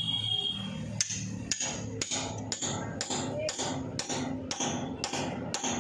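Hammer blows on a steel bolt held in the cloth-packed bearing bore at the end of a tractor crankshaft, about two a second, starting about a second in. Each is a sharp metallic strike with a brief ring. The blows press the cloth in and push the bearing out of the crankshaft.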